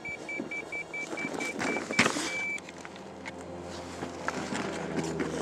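Carp bite alarm sounding a run: rapid high beeps, about four or five a second, that merge into one continuous tone and stop about two and a half seconds in, the sign of a fish taking the bait and pulling line off the reel. Footsteps on the gravel bank and a low steady drone follow.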